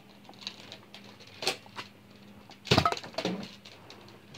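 A few scattered knocks and clicks over a faint steady hum, the loudest a short clatter a little under three seconds in.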